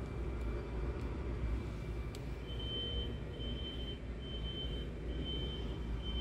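Scania R truck's diesel engine idling, a steady low rumble heard from inside the cab. From about two seconds in, a high electronic beep repeats about once a second.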